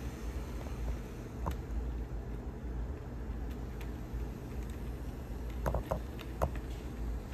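HO scale GP38-2 model diesel locomotive rolling along sectional track with a steady low rumble. Its wheels click sharply over the rail joints and turnouts, once early and in a quick cluster about six seconds in.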